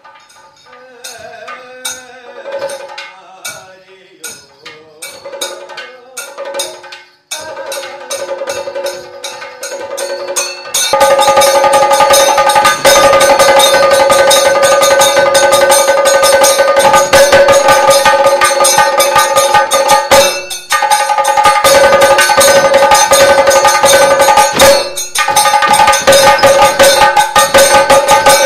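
Kathakali percussion accompaniment: drums with ringing metal cymbals or gong. It starts with sparse strikes and held tones, then about eleven seconds in breaks into loud, fast, dense drumming over a steady ringing, pausing for a moment twice near the end.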